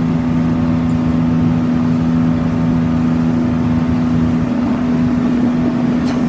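Motorboat engine running steadily under way, a constant hum over a rushing noise; a lower tone in the hum drops away about two-thirds of the way through.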